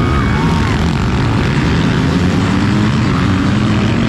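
Motocross bike engines running hard and revving on the track, their pitch wavering up and down.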